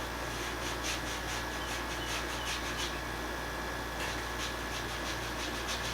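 Paintbrush scrubbing paint onto canvas in quick short strokes, about three or four a second, pausing briefly about halfway, over a steady low hum.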